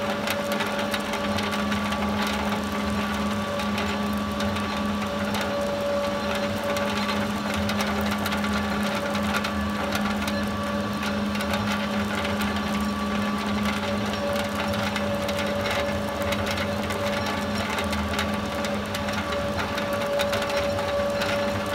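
Small flat-die biomass pellet mill running under load, pressing out pellets: a steady mechanical hum with a few held tones and a dense, fine clicking.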